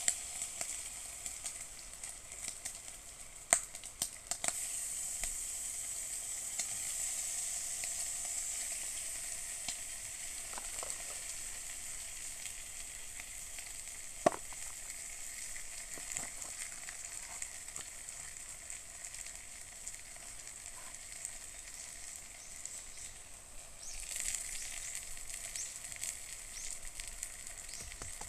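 Food sizzling steadily in a frying pan on a wood-fired can stove, with a few sharp pops along the way. The sizzle eases a little near the end, then picks up again.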